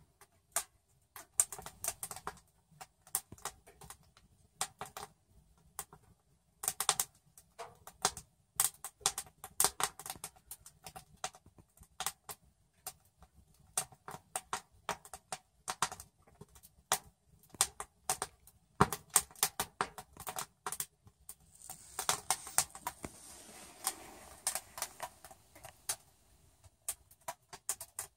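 Wood fire crackling inside a small galvanized sheet-metal wood stove: irregular sharp pops and snaps, with a soft hiss for a few seconds about three-quarters of the way through.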